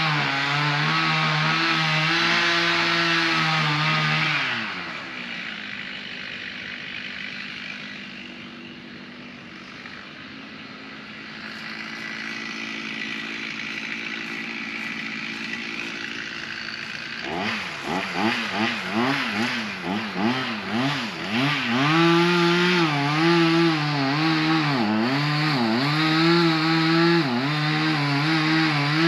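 Two-stroke chainsaw held at full throttle, then let down to idle about four seconds in. After a long idle it is blipped up and down, and it is held near full revs again with short dips over the last several seconds.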